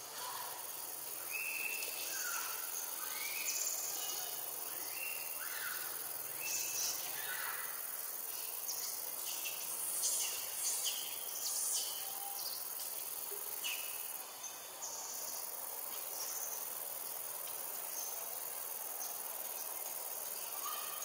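Jungle ambience: a steady high-pitched insect chorus, with many short chirping calls in the first half that thin out after.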